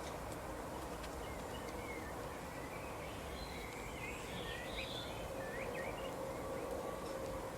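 Small birds chirping faintly in short high calls, busiest in the middle, over a steady outdoor background hiss with a faint low hum.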